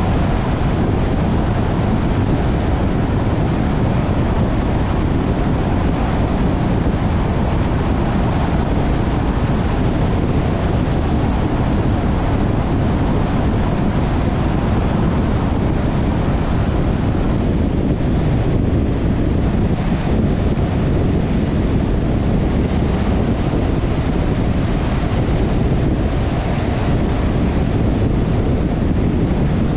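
Steady road noise of a moving car: tyre rumble mixed with wind noise on the microphone, holding an even level throughout.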